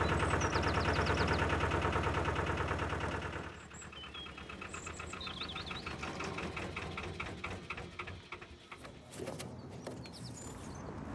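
Narrowboat's diesel engine running at low revs with an even beat, dropping much quieter about three and a half seconds in.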